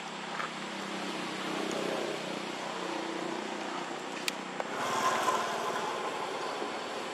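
Steady outdoor background noise with a low hum, broken by a single sharp click a little over four seconds in; the noise changes character just after.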